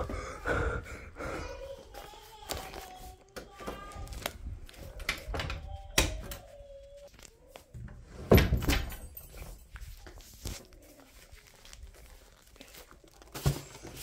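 A series of thuds and knocks from a door and things being handled in a small room, the loudest about six and eight and a half seconds in. A voice sounds faintly during the first few seconds.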